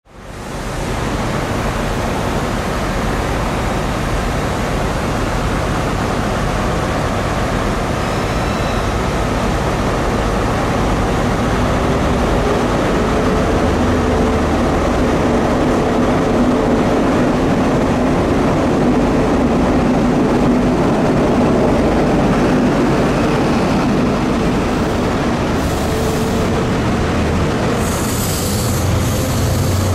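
Class 43 HST power cars' diesel engines drone steadily as the train comes along the platform and passes, with wheel and rail noise. One engine note glides slowly in pitch, and a few brief high-pitched sounds come near the end as the coaches go by.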